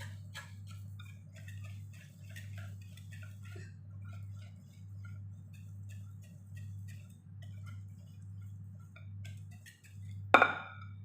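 A utensil clicking and scraping against a bowl as pancake batter is stirred by hand, with a steady low hum throughout. A little after ten seconds in comes a single loud ringing clink, like a spoon struck against the bowl.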